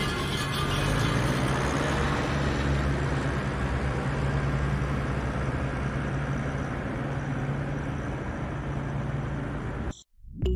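Tractor engine running steadily with a low hum, cutting off abruptly near the end.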